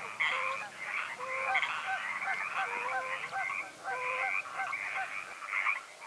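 A dense chorus of many frogs calling, with short overlapping croaks repeating several times a second.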